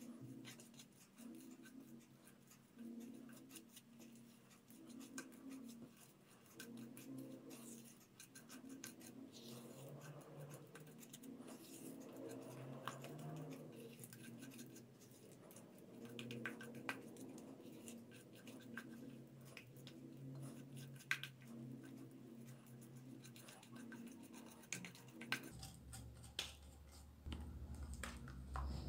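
Silicone spatula mashing and scraping softened butter and sugar against a glazed clay bowl: faint repeated strokes with light scratchy clicks, creaming the butter to a smooth paste.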